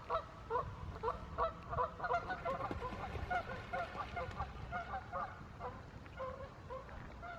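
Ducks quacking in a rapid run of short calls, several a second, tailing off to a few scattered quacks near the end.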